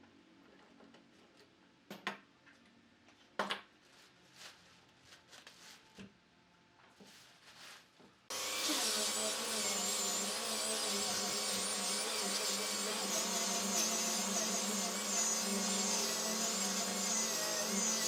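A few light clicks and knocks of handling in the shop. About eight seconds in, a woodworking power tool switches on and runs steadily with a high, wavering whine.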